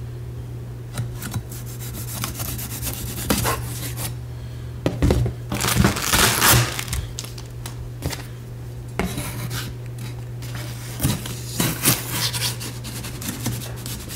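A large kitchen knife scraping and sawing through paper tape along a cardboard box seam: irregular scratchy strokes of blade on tape and cardboard, densest and loudest around the middle.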